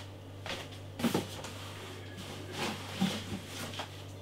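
Beer bottles and their packaging being handled: a few faint knocks and rustles, about one a second, over a steady low hum.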